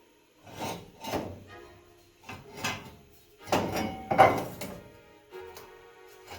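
A series of about seven metallic knocks and clanks in loose pairs, some ringing briefly, from work on an old metal tool chest, with background music underneath.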